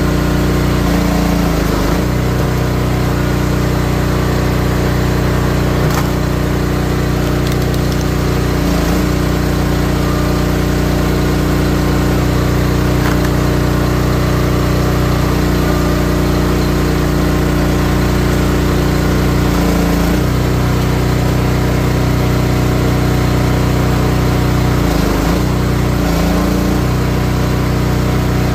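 Wolfe Ridge 28-ton high-output log splitter's engine running steadily, its note changing briefly several times as the splitter is worked. A single sharp click about six seconds in.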